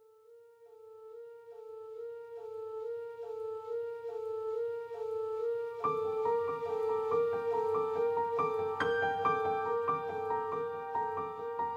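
Background instrumental music fading in, a held note under a light repeating pattern, filling out with more instruments about six seconds in.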